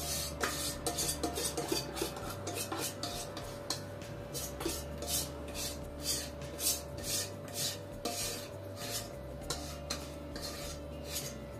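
Wire whisk scraping the inside of a stainless steel mixing bowl in quick repeated strokes, about two to three a second, working the last batter out of the bowl.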